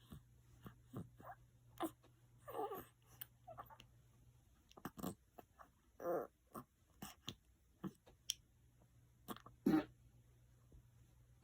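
Sleeping newborn baby snoring, grunting and snorting in short, irregular bursts. The loudest snorts come about two and a half, six and ten seconds in, with small clicks and snuffles between them.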